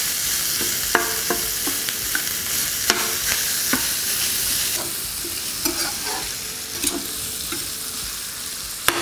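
Ground Italian sausage sizzling as it fries in hot oil in a copper frying pan, while a metal spatula scrapes and taps against the pan, breaking the meat into small chunks; each tap gives a short metallic ring.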